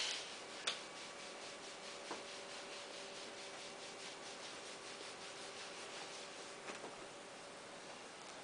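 Hands rubbing and kneading a toddler's back and shoulders through a fleece top, making a faint, even brushing of skin on fabric with soft repeated strokes. There is a small click under a second in.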